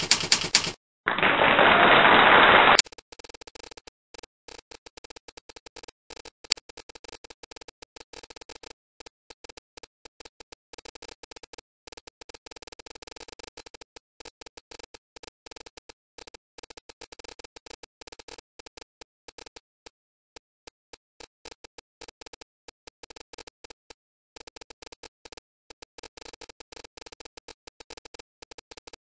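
A loud rushing sound effect lasts about two seconds, starting about a second in. It is followed by a fast, steady run of small typewriter-key clicks with a few short gaps: a presentation's typewriter sound effect playing as text appears letter by letter.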